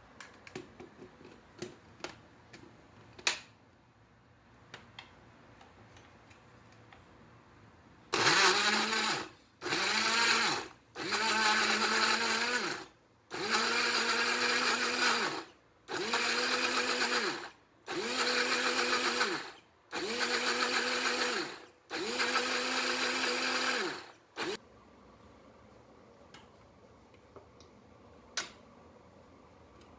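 Karaca Blendfit&Go personal blender run in about eight short pulses, blending fruit and yogurt. Each pulse, its motor spins up, runs a second or two and winds down. A few clicks come first as the bottle is seated on the base.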